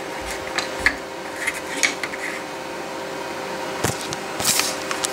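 Steady hum of a 3D printer's fans with light clicks and scrapes of a plastic print being handled on the printer's bed. About four seconds in, one steady tone in the hum stops suddenly with a click.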